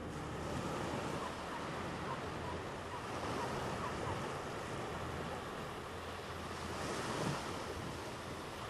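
Waves washing on a shore, with wind: a steady, even rushing noise and no pitched sound in it.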